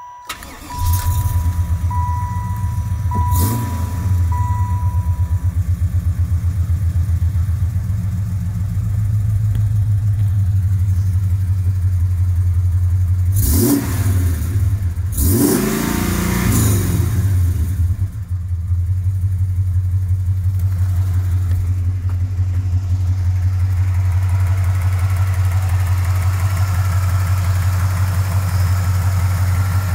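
Chevrolet Impala SS's 5.7-litre LT1 V8 starting up about a second in and settling into a steady idle, with a couple of brief revs midway. A dashboard warning chime dings repeatedly over the first few seconds.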